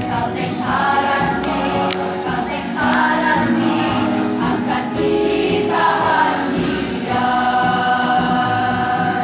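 School choir singing in parts into microphones, the notes held and changing every second or two, then a long sustained chord over the last couple of seconds.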